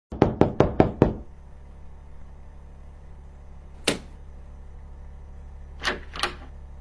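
A quick run of about seven knocks or taps in the first second, then a single knock near the middle and two more close together near the end, over a steady low hum.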